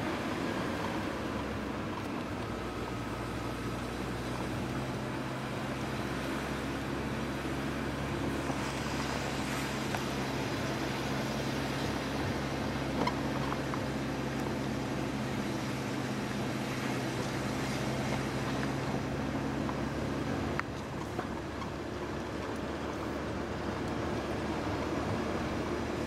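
Car engine running with tyre and road noise while driving: a steady low drone that dips and shifts briefly about twenty seconds in.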